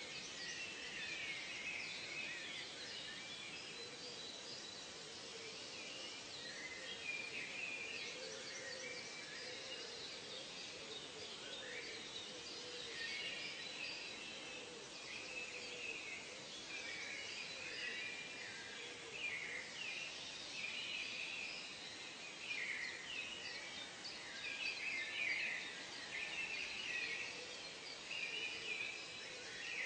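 Ambient wildlife chorus of many overlapping birds chirping and calling over a steady background hiss, waxing and waning.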